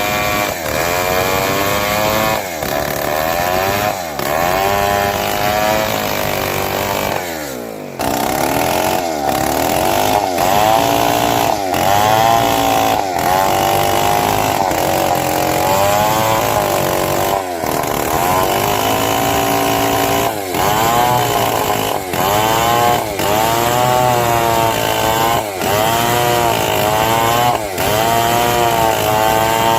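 Old two-stroke chainsaw running hard, its engine pitch dipping and rising again and again. Around seven seconds in the engine slows with a falling pitch, then picks up again.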